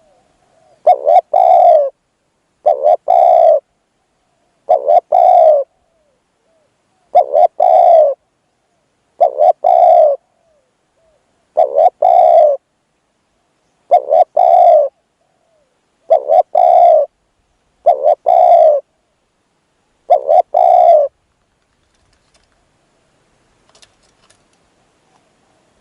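Spotted dove cooing: ten calls of the same phrase, a short note and then a longer one, about every two seconds. The calling stops about 21 seconds in.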